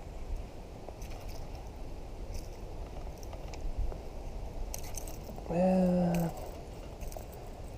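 Steady low wind rumble on the microphone with a few scattered light clicks and taps of handled gear; a man's short "yeah" near the end.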